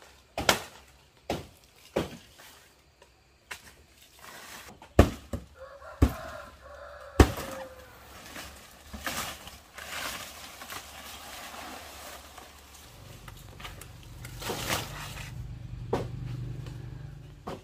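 A series of sharp, irregularly spaced knocks and strikes, with a drawn-out animal call about six seconds in. A low steady hum starts about two-thirds of the way through.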